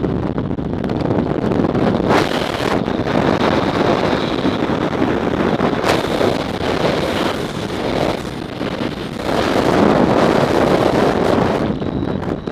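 Freefall wind buffeting the camera microphone during a tandem skydive: loud, steady wind noise that swells and dips in strength.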